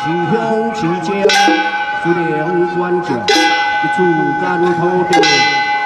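A Taoist priest chanting into a microphone with long held notes, while a ritual bell is struck three times about two seconds apart, each strike ringing on.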